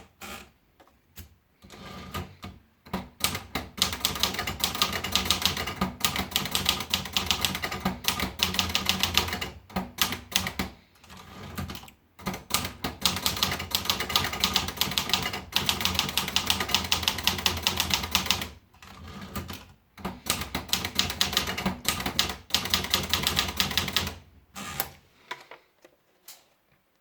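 Olivetti Lettera DL manual portable typewriter being typed on: fast runs of keystrokes, broken by a few short pauses.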